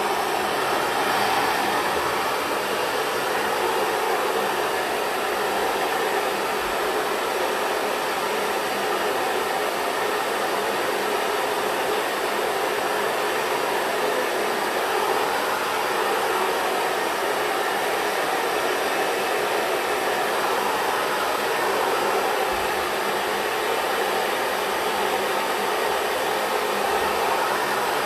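Xtava Pro hair dryer with a diffuser attachment running steadily at a constant speed, an even rush of blown air and motor whir.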